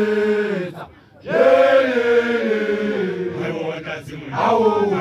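Large group of voices chanting in unison, holding long notes that slowly slide down in pitch; the chant breaks off about a second in, then comes back in loudly and swells again near the end.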